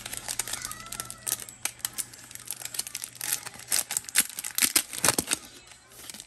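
Foil wrapper of a Topps Chrome baseball card pack crinkling and tearing as it is ripped open: a run of sharp crackles, densest and loudest about three to five seconds in.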